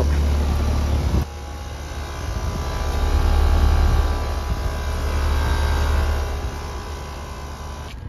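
Carrier Comfort 3.5-ton heat pump outdoor unit running: a steady low hum with fan noise over it. The hum drops suddenly about a second in, then swells again and fades toward the end.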